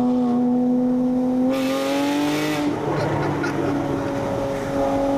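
Porsche Cayman S engine and Armytrix aftermarket exhaust heard from inside the cabin while driving. The engine note rises gently, dips slightly just before three seconds in and then holds steady, with a burst of hiss for about a second around two seconds in.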